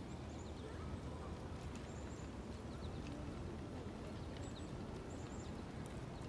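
Small birds chirping in short, high calls scattered through, over a steady low rumble.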